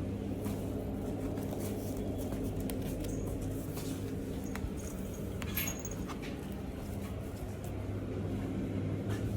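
Kittens playing: scattered light taps and clicks from paws and play over a steady low hum in the room, with one sharper click about halfway through.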